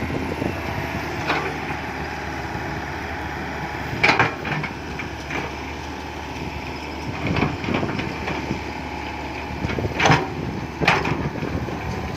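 Komatsu PC120-5 excavator's diesel engine running steadily while it digs and loads soil, with several sharp clunks and knocks, about four of them, the loudest a little after four seconds and around ten to eleven seconds in.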